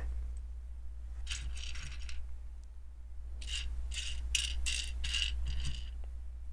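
Loose plastic LEGO pieces clattering and rattling as they are sifted by hand, in a short bout about a second in and a longer one a couple of seconds later, over a steady low hum.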